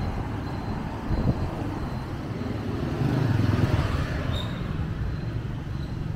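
Street traffic: a car and motorbikes passing at low speed, a steady rumble of engines and tyres that swells about three seconds in. A brief high squeak comes a little after four seconds.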